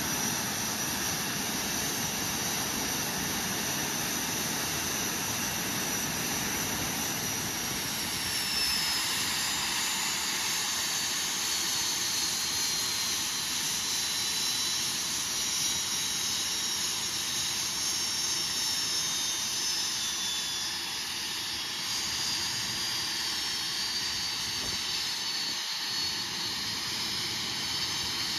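TS-11 Iskra jet trainer's single turbojet engine running on the ground during an engine test: a steady jet roar with a high turbine whine that glides down in pitch from about eight seconds in.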